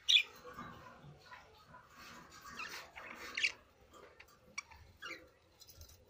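Budgerigars chirping and chattering in short, high calls: a loud chirp right at the start, a busier burst of chatter about three seconds in, then a few single chirps near the end.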